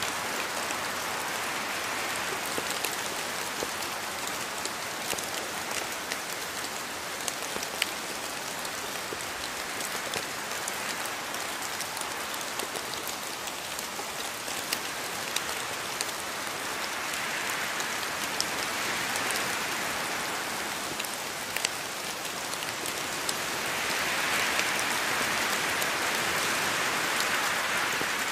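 Steady rain falling, with scattered single drops ticking sharply through it. The downpour swells heavier twice, the second time near the end.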